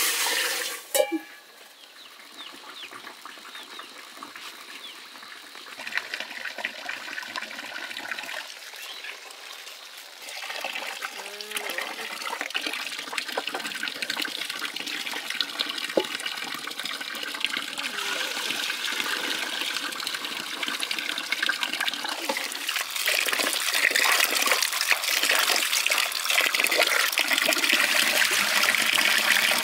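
Water trickling and splashing, growing steadily louder over the half minute, with scattered clicks.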